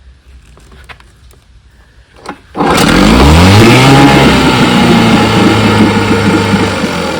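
1969 Evinrude 6 HP two-cylinder two-stroke outboard in a test barrel, starting about two and a half seconds in. It catches at once, revs up over about a second and a half, then settles into steady running.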